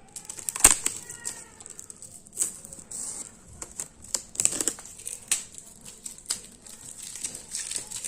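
Packaging and bottles being handled: irregular crinkling rustles and light clicks, with a brief faint squeak about a second in.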